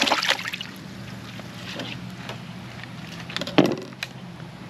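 Pieces of catfish belly meat dropped into a bucket of water: a splash right at the start, then a sharp knock or splash about three and a half seconds in, over a low steady hum.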